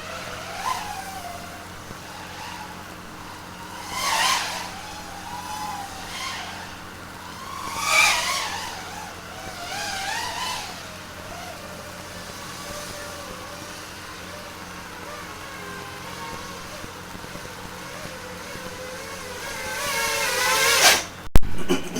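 FPV quadcopter's brushless motors whining, the pitch rising and falling in throttle swells every few seconds over a steady low hum. Near the end comes a climbing whine, cut off by one sharp, loud knock.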